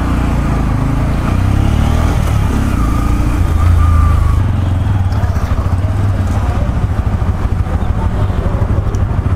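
Bajaj Pulsar N160 motorcycle's single-cylinder engine running at low revs while the bike rolls slowly, heard from the rider's seat. It gets a little louder about four seconds in.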